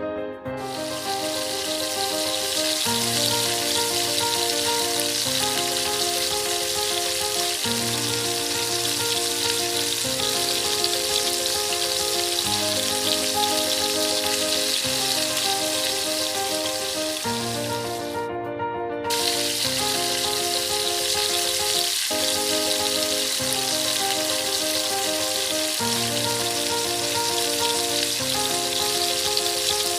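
Food sizzling steadily in a hot pan during curry cooking, over background music. The sizzle cuts out for about a second partway through, then resumes.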